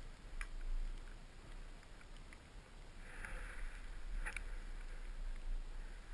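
Skis sliding over snow, picked up by a helmet camera, with a steady low rumble on the microphone. The hiss swells briefly past the middle, and a couple of sharp clicks come about half a second in and just after four seconds.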